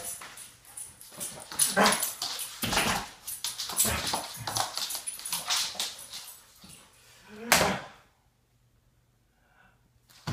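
A dog vocalizing in irregular bursts for about eight seconds, then going quiet, with one short sound right at the end.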